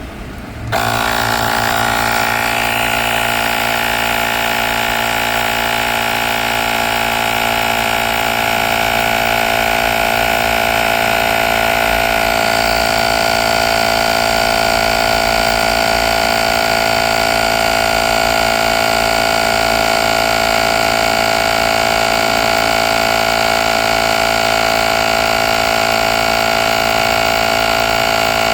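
Small electric air compressor of a portable jump starter's tyre inflator switching on and running steadily, a constant mechanical whine.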